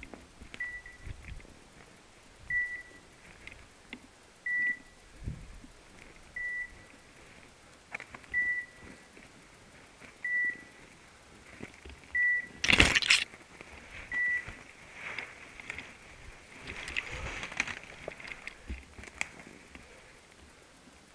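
Hunting dog's beeper collar sounding short high beeps about every two seconds, stopping a little past halfway. A loud burst of noise a little before the beeps stop is the loudest sound.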